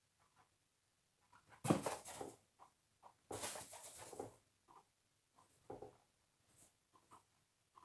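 Guinea pigs popcorning on a fleece-covered wooden board: scrabbling paws and soft thumps on the board and fleece. There are two louder, sudden bursts of scuffling about two and three and a half seconds in, with scattered light knocks between them.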